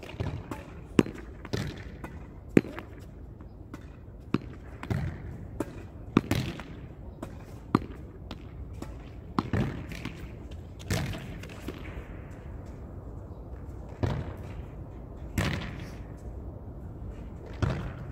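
A ball being hit against a wall over and over: sharp knocks mixed with duller thuds, coming at uneven gaps of about one to two seconds.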